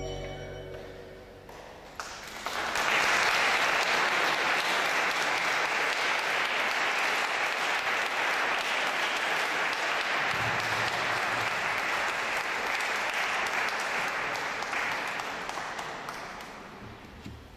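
Giroud pipe organ's final chord dying away in the church's long reverberation, then an audience applauding from about two seconds in, the applause fading out near the end.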